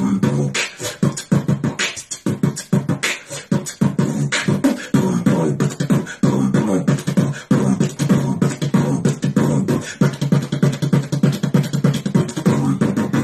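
A person beatboxing: rapid mouth-made kick, snare and click sounds over a low hummed tone that holds under the beat.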